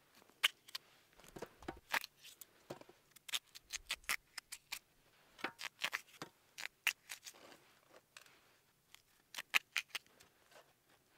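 Knife cutting raw red potatoes held in the hand: a run of short, crisp cuts and clicks, irregular, a few a second, as potato halves are set into an enamel roasting pan.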